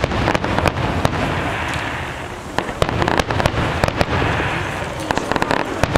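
Aerial fireworks shells bursting: an irregular run of sharp bangs and crackling reports, coming thicker in the second half.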